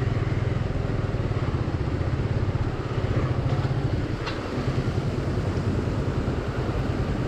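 Single-cylinder engine of a Hero XPulse 200 motorcycle running steadily.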